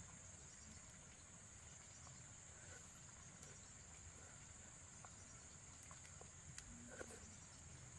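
Faint, steady, high-pitched drone of insects, with a few light clicks toward the end.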